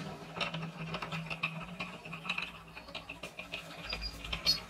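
Homemade steel bench vise being opened by spinning its handle: irregular small metallic clicks and rattles from the screw and sliding handle as the movable jaw travels out, with a sharper metallic clink near the end.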